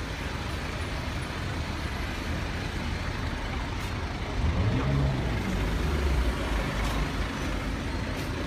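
Low, steady rumble of a running car engine, swelling louder for a couple of seconds about halfway through.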